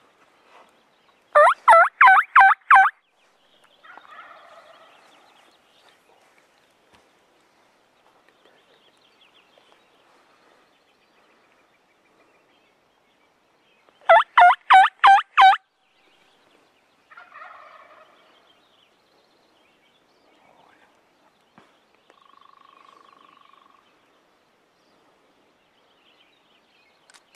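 Wild turkey gobblers gobbling: two loud gobbles about twelve seconds apart, each a quick rattle of about five notes, and each followed a second or two later by fainter gobbling from farther off.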